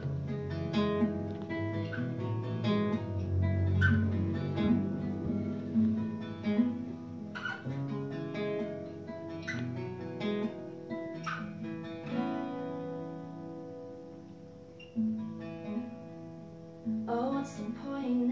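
Steel-string acoustic guitar played solo, chords picked and strummed as the opening of a song; it grows softer in the middle and picks up again near the end.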